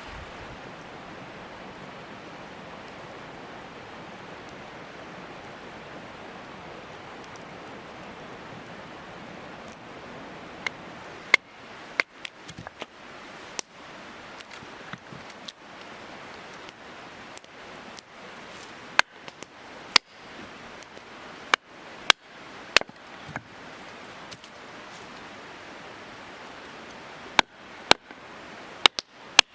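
A steady rushing noise. From about eleven seconds in, sharp, loud cracks or knocks break in at irregular intervals and come more often toward the end.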